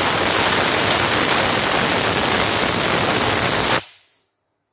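Pressure cooker whistle blowing off steam: a loud, steady hiss that cuts off suddenly near the end. It is one of the whistles counted to time the kidney beans cooking under pressure.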